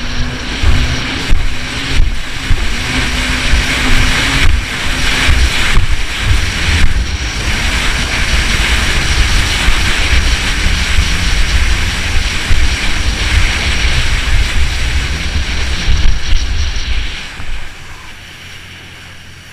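Sea-Doo jet ski running under way, a steady engine drone mixed with wind buffeting the microphone and water rushing and spraying against the hull. It falls much quieter about two seconds before the end as the craft eases off.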